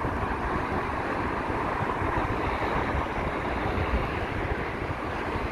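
Wind buffeting the microphone in uneven low rumbling gusts, over a steady background rush.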